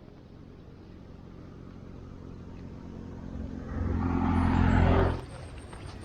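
An engine running with a steady hum that grows louder over about four seconds, then cuts off abruptly about five seconds in.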